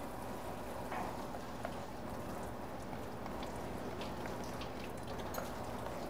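Crème pâtissière cooking and being whisked in a saucepan over medium-high heat, just as it lumps and comes back together: a soft, even hiss with a few light ticks.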